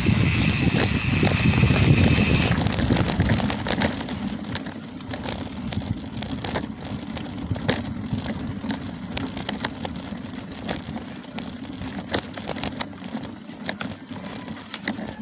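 Mountain bike ridden over a rough, stony dirt trail. For the first couple of seconds there is a loud wind rumble on the microphone, which then drops away. After that come tyres crunching on loose stones and a steady run of irregular rattling clicks from the bike.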